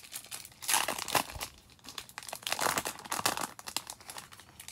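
Foil wrapper of a 2020 Topps Opening Day trading-card pack being torn open by hand and crinkling, in two bouts of rustling: one about a second in and another near three seconds.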